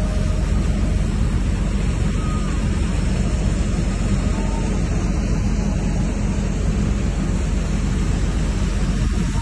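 Steady rushing noise with a deep, unbroken rumble underneath: wind over an open tanker deck mixed with the ship's machinery.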